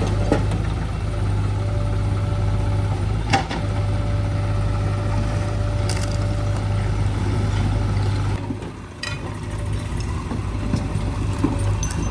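Diesel engine of heavy earthmoving machinery running with a steady low hum, with a few sharp knocks and clunks over it and a brief drop in level about three-quarters of the way through.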